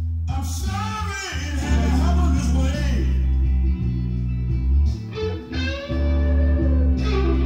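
Blues recording played on a home stereo: electric guitar and bass, with a voice singing over them.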